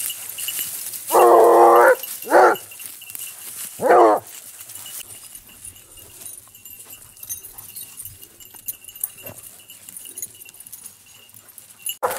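Blue basset hounds giving tongue on a hare hunt: three loud baying cries, a long held one, a short one, then one that bends in pitch, followed by faint rustling of leaf litter.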